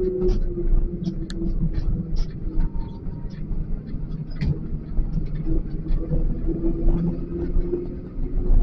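XCMG LW500HV wheel loader's diesel engine running, heard from the cab as a steady low rumble with a wavering hum, with scattered clicks and rattles throughout.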